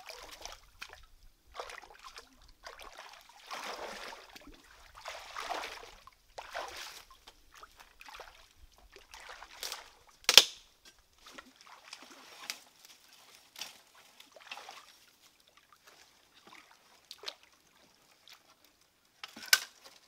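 Shallow stream water splashing and sloshing around legs and hands wading and groping in the water, in irregular swells that grow sparser in the second half. A single sharp, loud impact about halfway through is the loudest moment, with another near the end.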